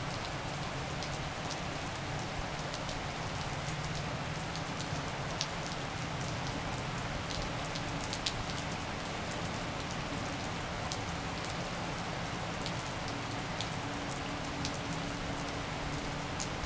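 Steady rain falling on a wet brick patio and lawn, an even hiss with scattered sharp ticks of single drops landing close by.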